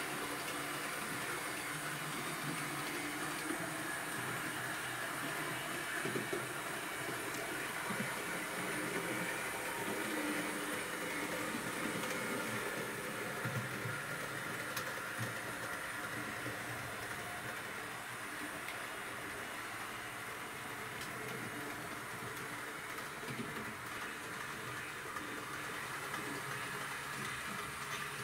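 HO-scale model freight train running along its track: a steady whir of the Roco DB class 212 diesel locomotive model's motor and the rolling of the wagons' wheels on the rails, with a few light clicks.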